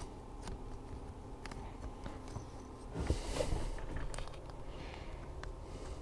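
Faint handling noises of a crimping tool and a rubber fuel hose being worked by hand: scattered small clicks and a soft rustle about three seconds in, over a low steady hum.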